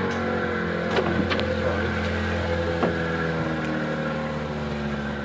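Motorboat engine running steadily, its pitch drifting slightly, with a few sharp clicks about a second in and again near three seconds.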